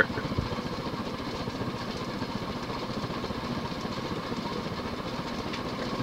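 Hunter Embassy 42-inch ceiling fan with a 172x12mm motor running steadily on high speed. Its well-worn motor bearings are loud and clunky, but not hissing.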